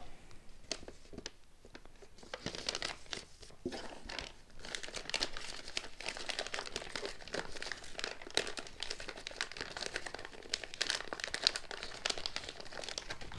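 Thin clear plastic parts bag crinkling as hands work it open. There are a few scattered rustles at first, then steady dense crinkling from about two seconds in.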